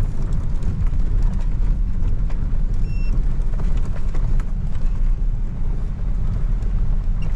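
Pickup truck cab while driving: steady low engine and road rumble with scattered rattles and knocks from the cab. A short high beep sounds once about three seconds in.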